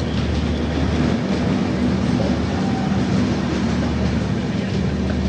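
Passenger train running and picking up speed, heard from inside a coach: a steady rumble of wheels on the track.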